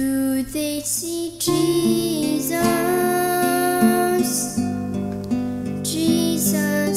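A girl singing a slow worship song, holding long notes, over acoustic guitar accompaniment.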